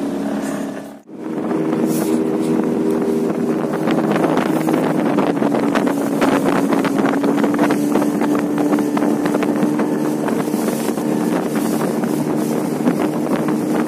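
Fishing boat's engine running steadily under way, with wind buffeting the microphone. The sound drops out briefly about a second in.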